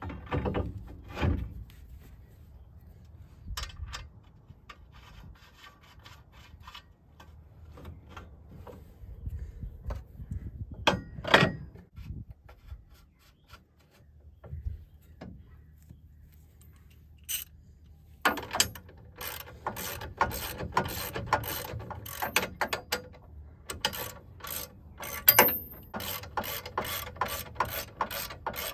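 Hand ratchet clicking in repeated strokes, a couple a second, from about two-thirds of the way through, as a nut is run down onto the steering knuckle's ball-joint stud. Before that, a few metal clanks as the steel knuckle is handled and fitted.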